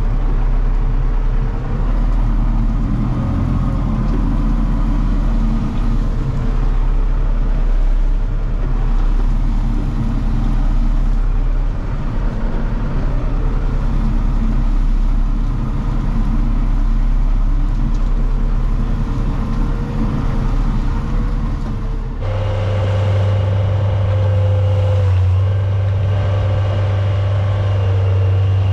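A 1985 dump truck's engine running steadily under load as the truck creeps forward spreading asphalt millings from its raised bed. About three-quarters of the way through, the engine note changes abruptly to a different steady pitch.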